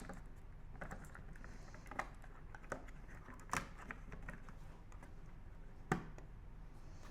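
Small plastic clicks and taps as a new 9-volt battery is snapped onto its clip and seated in a hardwired smoke alarm's battery compartment, about six clicks with the sharpest near the middle and near the end.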